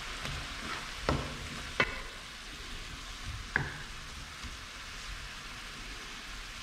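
Sliced mushrooms, tomatoes and onions sizzling in a frying pan as a wooden spatula stirs them. Three sharp knocks of the spatula against the pan fall in the first four seconds.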